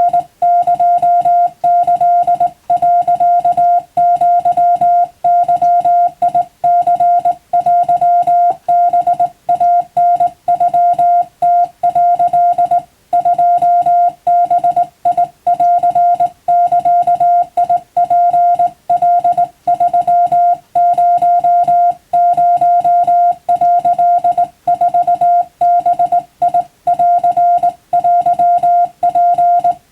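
Japanese wabun Morse code: a single steady tone keyed on and off in quick dots and dashes, with short gaps between characters and a slightly longer pause about halfway through.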